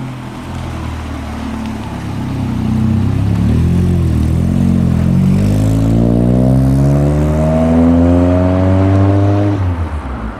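Ford Sierra Sapphire saloon's engine pulling away, then accelerating hard, its note rising steadily for about five seconds before dropping abruptly near the end as the throttle is lifted.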